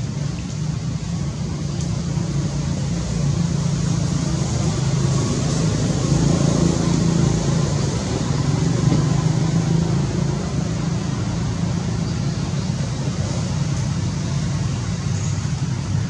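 Steady low rumble with an even hiss over it, a little louder for several seconds in the middle.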